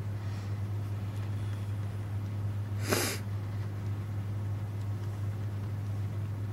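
Steady low hum throughout, with one short noisy puff of air, like a snort or sneeze, about three seconds in.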